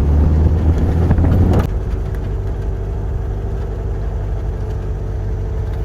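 An engine running with a steady low rumble, louder for the first second and a half, then settling to an even level.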